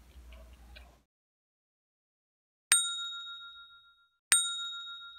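A bright bell ding sound effect, struck twice about a second and a half apart, each ringing out and fading over about a second.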